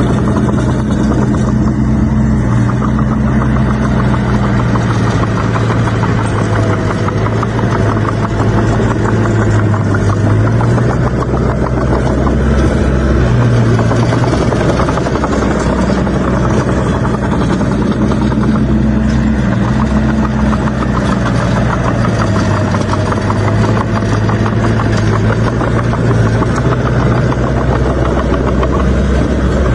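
Bulldozer's diesel engine working steadily, its low drone shifting up and down in pitch every few seconds as the load changes while it pushes soil.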